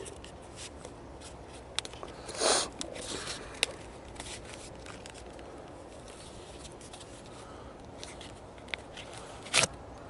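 Handling noise as a metal detector's remote control is pulled out of its soft protective case: small clicks and scrapes, with a short rustle about two and a half seconds in and a sharper click just before the end.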